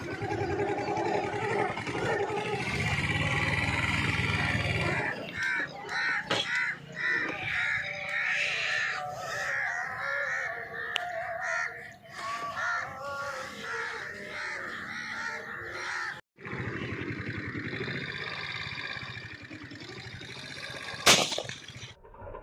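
Birds calling over most of the stretch, then a single sharp shotgun shot about a second before the end.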